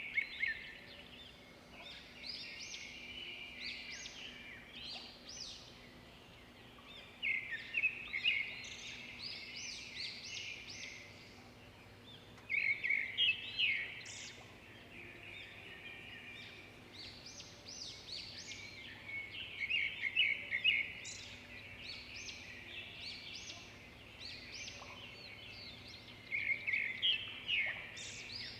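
Small birds chirping continuously, with a louder burst of rapid trilling coming back about every six to eight seconds.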